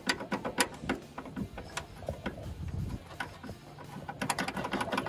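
A steel bolt being shaken and jiggled against a TCP motor mount plate, giving irregular metallic clicks and rattles in clusters near the start and again near the end. The bolt is catching because its hole does not line up straight.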